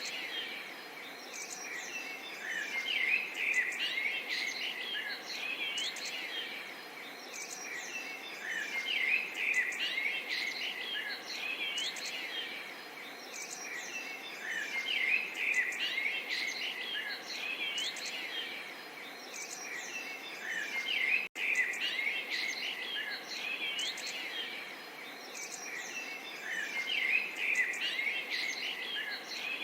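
Small songbirds chirping and twittering over a soft, steady babble of running water. The bird pattern recurs about every six seconds, and the sound drops out for a split second about two-thirds of the way through.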